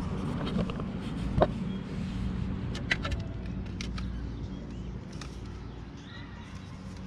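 A few sharp clicks and light knocks from a hand-squeezed brake caliper piston spreader being worked against the pads to push the caliper piston back, the loudest knock about a second and a half in.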